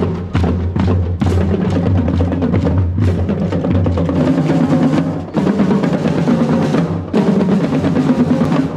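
Marching band playing: a steady beat of bass and snare drums with held low wind notes underneath.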